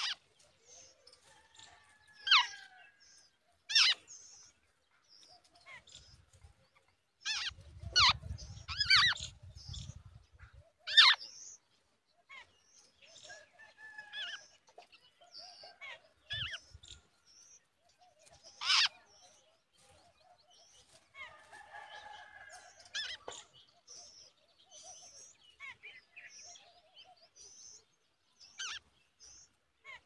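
Jungle babblers at the nest giving short, harsh calls at irregular intervals, thickest about a third of the way in, with fainter high chirps in between. A low rumble runs under the busiest calling.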